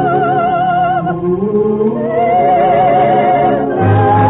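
Orchestral operetta music: a long held melody note with wide vibrato, gliding up to a new held note about two seconds in, then the orchestra swells louder with a strong bass near the end.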